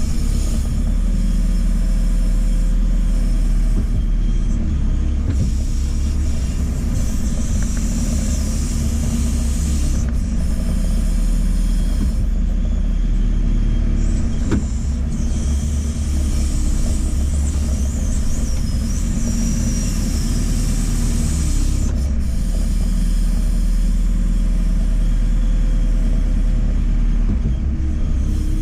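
JCB 4CX backhoe loader's diesel engine running steadily as the machine works, a deep, loud, constant rumble with faint higher tones wavering over it now and then.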